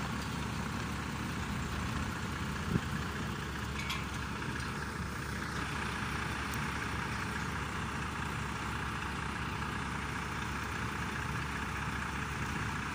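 Truck-mounted concrete pump's diesel engine running steadily while it pumps concrete into column forms, with a single brief knock about three seconds in.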